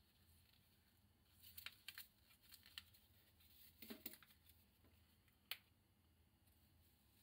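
Faint crinkling and tearing of paper stick packets of instant dashi powder, in scattered short rustles, with one sharp click about five and a half seconds in.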